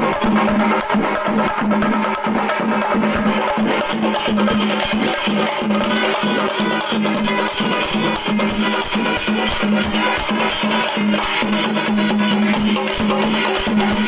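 Singarimelam: several Kerala chenda drums beaten with curved sticks in a fast, dense, unbroken rhythm.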